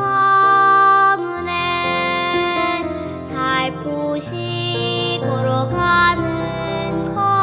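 Music from a children's song: long held melodic notes that change every second or so, over lower accompanying notes.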